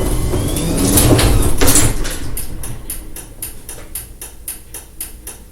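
Garage door opener running with the door rumbling along its track, stopping about two seconds in, followed by an even ticking of about four clicks a second.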